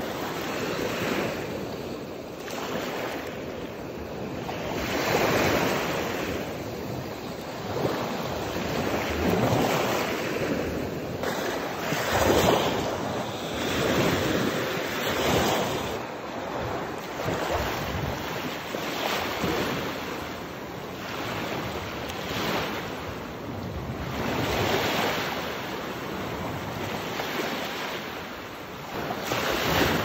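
Small sea waves breaking and washing over the shallows at the shoreline, each one swelling and fading every two to three seconds.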